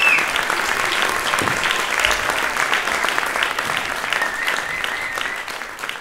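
Audience applauding, with a brief high whistle from the crowd about four seconds in; the applause fades out toward the end.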